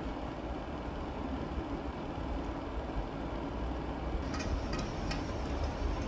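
Steady low background hum of a kitchen, with a chef's knife striking a plastic cutting board several times, about two strikes a second, in the last two seconds.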